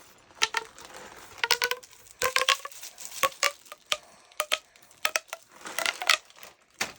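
Plastic fidget toy being worked by hand, giving a run of sharp, irregular clicking pops, roughly two a second, each with a brief ringing pitch.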